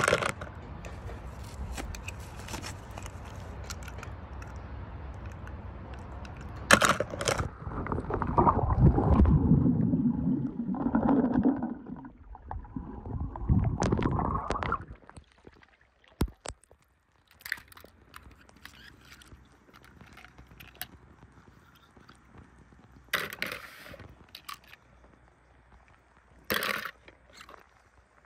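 Toy cars in a pool of water: water sloshing and gurgling with splashes and knocks, loudest in the first half. About halfway through it dies down to quiet, with a few sharp knocks spaced apart.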